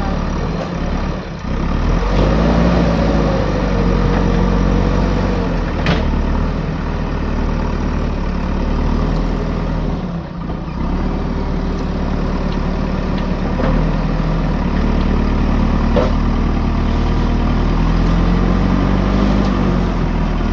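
Diesel engine of a JCB backhoe loader running, its pitch rising and falling twice as it comes under load, with a couple of short sharp knocks.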